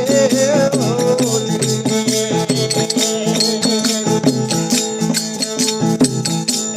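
Instrumental break in a devotional folk bhajan: sustained melodic instruments hold steady notes over an even beat of jingling percussion.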